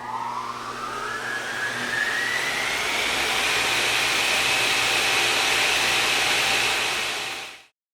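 A machine's motor spinning up, its whine rising in pitch over the first few seconds and then running steadily at speed with a rushing hiss and low hum, before cutting off abruptly near the end.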